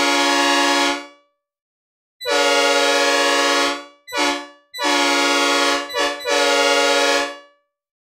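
Synthesizer recreation of a Nathan P5A five-chime locomotive air horn in its 'mixed cast' version, dry with no reverb, sounding a chord in separate blasts. A held blast stops about a second in; after a pause comes a blast of about a second and a half, a short toot, then a longer blast broken by a quick stutter into a final blast that stops shortly before the end.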